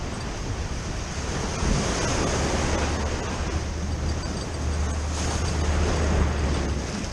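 Ocean surf washing onto the beach, rising and falling in loudness, with wind rumbling on the microphone.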